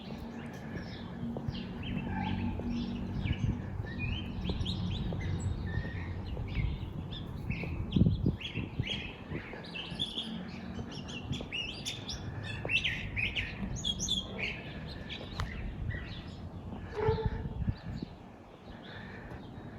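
Small birds chirping in many quick, short calls, over a low steady rumble, with one dull thump about eight seconds in.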